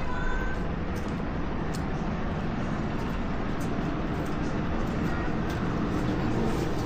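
Steady road and engine noise of a car on the move.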